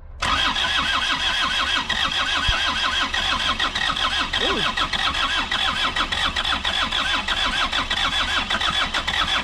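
Isuzu P'up's four-cylinder turbo diesel being cranked over by its starter, a fast, even chugging rhythm that starts suddenly and keeps going without the engine catching. It is running on parts-washer fluid through the injection pump after sitting for decades.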